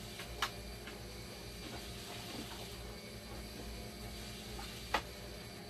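Two sharp clicks, about half a second in and near the end, from parts of a dialysis machine being handled, over a steady hum and hiss.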